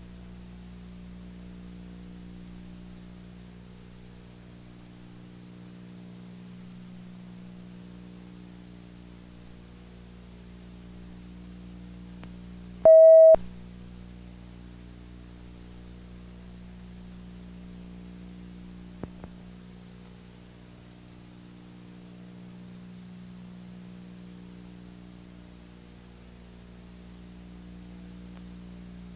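Steady electrical hum with many even overtones, broken once about halfway through by a short, loud beep, with two faint clicks a few seconds later.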